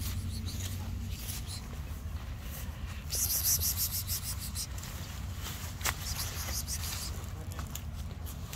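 Outdoor ambience: a steady low rumble with scattered light clicks and a burst of close rustling about three to five seconds in.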